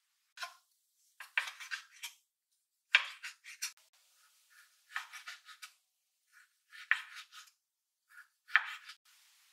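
Kitchen knife slicing abalone on a wooden cutting board: short runs of quick, sharp knocks as the blade meets the board, a run every second or two.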